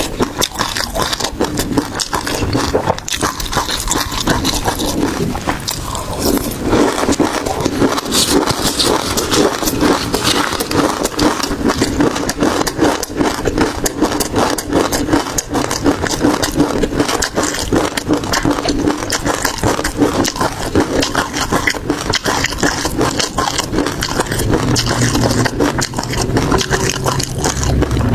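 Close-miked eating sounds: dense, continuous crackling and squelching chewing of seafood.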